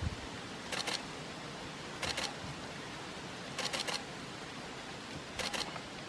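A camera shutter firing in four short bursts of rapid clicks, spaced about one and a half seconds apart, over a steady background hiss.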